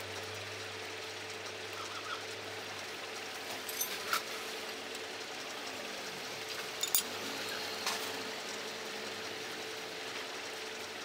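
A few light metallic clicks and taps as small steel hydraulic-jack parts are handled and fitted in a bench vise, over a steady background hiss and hum.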